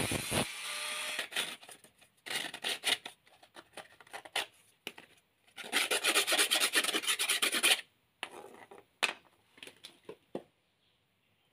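A piece of coconut shell rubbed by hand against a loose abrasive disc: rapid rasping strokes in two bursts, a short one about two seconds in and a louder, longer one of about two seconds in the middle, followed by a few light clicks. At the very start an angle grinder cuts off and winds down.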